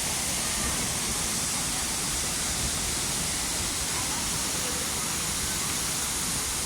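Waterfall: falling water rushing steadily, an even unbroken noise with no change in level.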